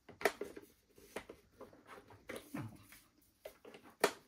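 Hard plastic toy parts being handled and fitted onto a model helicopter: a scattering of light clicks and knocks, the sharpest one near the end.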